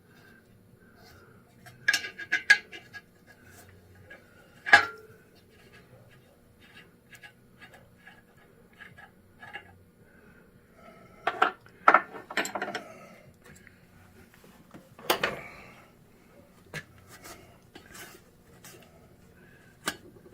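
Metal hand tools and parts clinking and knocking irregularly against metal, with a few louder clanks about two seconds in, near five seconds, around twelve seconds and at fifteen seconds, and light ticks between.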